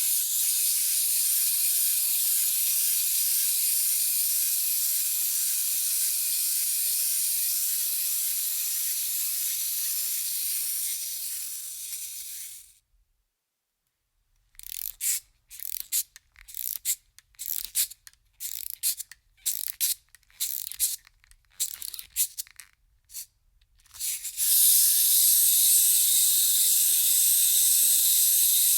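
A wind-up toy's clockwork spring motor whirs steadily, then runs down and stops about 12 seconds in. After a short silence the key is wound in a quick series of short ratcheting bursts. Once released, the motor whirs steadily again for the last few seconds.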